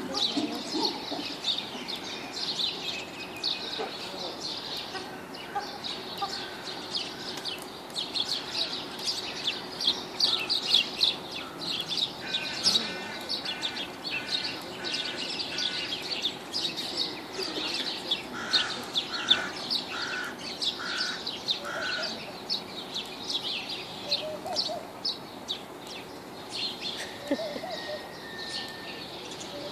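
Many small birds chirping and twittering. Twice in the middle comes a run of about five even, repeated lower call notes.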